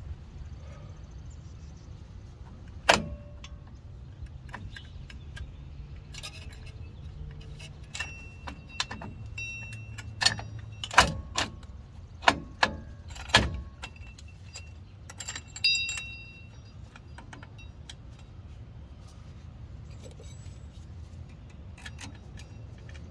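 Steel drum-brake hardware on a 1995 Ford F-150's rear brake clicking and clinking as the shoes, springs and adjuster parts are handled and fitted: scattered sharp taps, busiest about halfway through, a few of them ringing briefly like struck metal.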